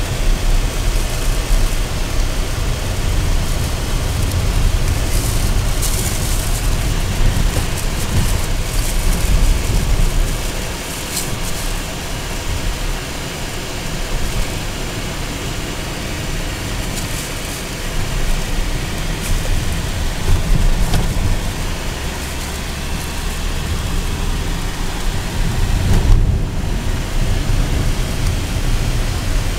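Road and engine noise inside the cabin of a moving 2015 Renault Duster: a strong low rumble under an even rushing noise, easing off a little for a few seconds in the middle.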